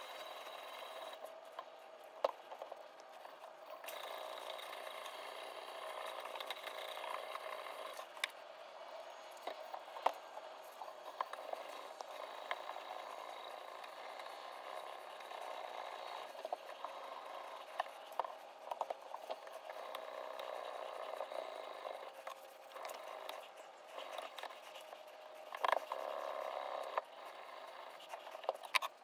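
Sharpening stone on the guide rod of a guided knife-sharpening system scraping back and forth along a clamped folding-knife blade, with a steady rasp and now and then a sharp click.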